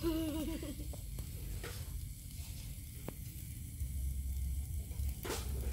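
Scallops in their shells and salmon pieces sizzling faintly on a charcoal grill, with a few sharp clicks. A brief voice sounds at the very start.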